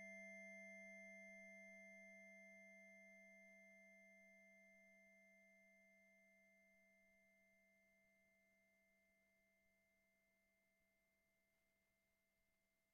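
Roland System-1m synthesizer sustaining a faint, steady pure-sounding tone that fades away slowly and evenly.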